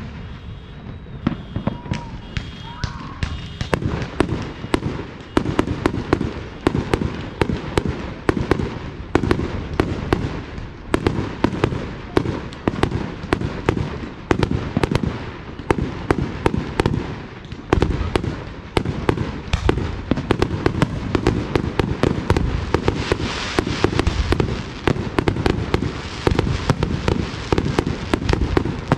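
Fireworks display: aerial shells bursting, sparse at first, then an almost continuous run of booms and pops from about four seconds in, with a crackling hiss joining in near the end.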